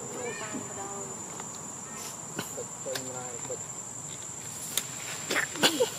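Insects shrilling in one steady high tone, with a few short pitched calls over it and some sharp clicks near the end.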